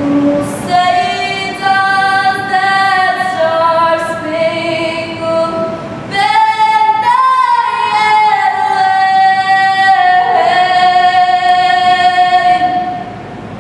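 A woman singing a slow song with long held high notes, the melody stepping up about halfway through; the voice stops shortly before the end.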